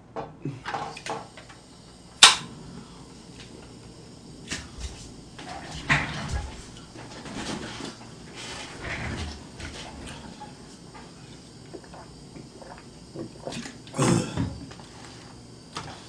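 Scattered knocks, clicks and rustles of food containers being handled on a table and a person shifting in a chair, with one sharp click about two seconds in and a louder rustle near the end.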